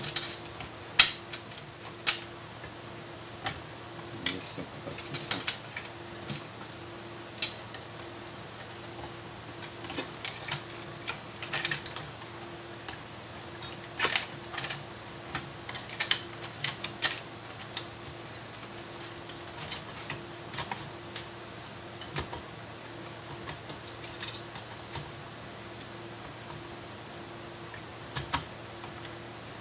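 Irregular clicks, taps and knocks of a heatsinked amplifier circuit board being handled and fitted back into a DVD unit's metal chassis, the loudest about a second in, over a steady low hum.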